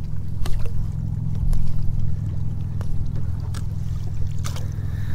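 Water trickling and dripping around a kayak as a crab trap is hauled up over the side, with a few sharp knocks scattered through, over a steady low rumble.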